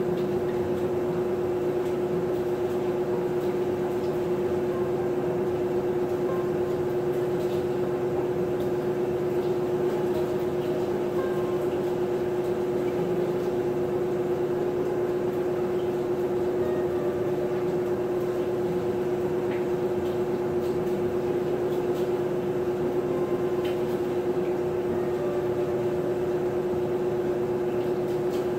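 Maytag top-load agitator washing machine running: a steady motor hum with a fixed low drone that does not change in pitch or level.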